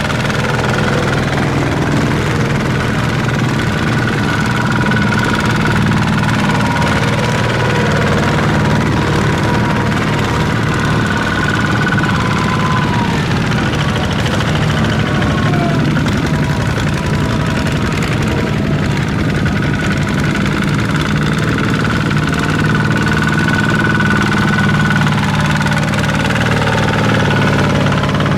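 Tractor engine running steadily at a constant speed, with a faint higher whine that fades in and out.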